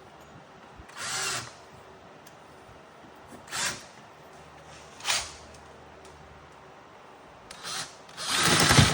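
Power drill run in five short bursts, boring a pilot hole with a slightly larger bit; the last burst near the end is the longest and loudest.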